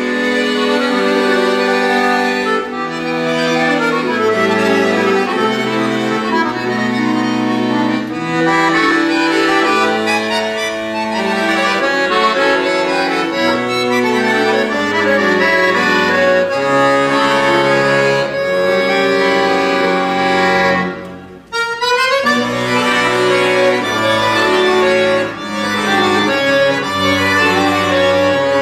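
Solo chromatic button accordion with free (chromatic) bass, playing a classical-style piece: a melody over moving bass notes in the left hand. About three-quarters of the way through there is a brief break, followed by a quick rising run.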